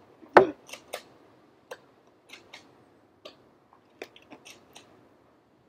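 A loud plastic clack about half a second in, then a scattered run of light clicks, as a Nerf blaster is handled, primed and fired.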